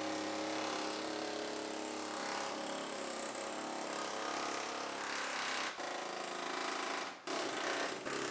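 Pneumatic air chisel hammering rapidly as it cuts through the sheet-metal rear quarter panel of a GMC Yukon. The chatter is steady, with a few brief stops and restarts in the second half.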